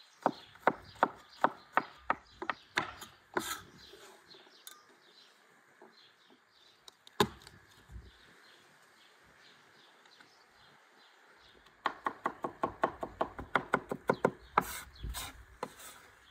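Cleaver chopping garlic on a wooden cutting board: a run of sharp knocks at about three a second, a single knock around seven seconds in, then a faster run of chops near the end.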